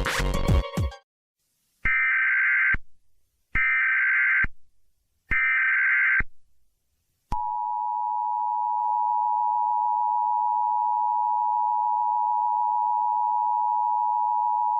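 Emergency Alert System tones: three short bursts of SAME header data tones, then from about seven seconds in the steady two-tone attention signal, 853 and 960 Hz sounding together. Music cuts off in the first second.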